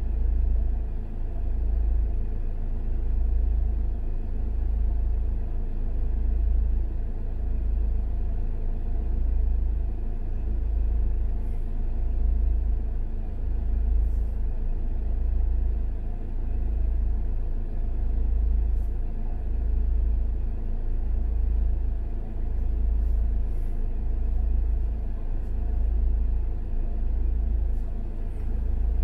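Low, steady rumble of idling vehicle engines in stopped traffic, heard from inside a car: a deep hum that slowly swells and dips every second or two.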